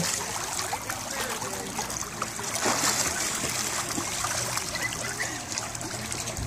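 Pool water splashing and churning steadily as a toddler kicks and paddles at the pool's edge.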